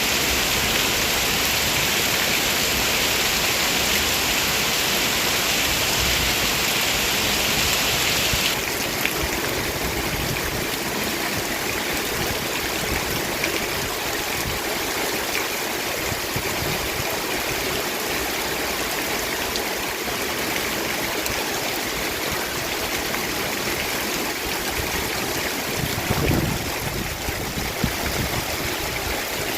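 Heavy rain falling steadily with rushing water. The bright high hiss of the rain drops away abruptly about eight seconds in, leaving a duller, steady wash of water, and a brief low rumble comes near the end.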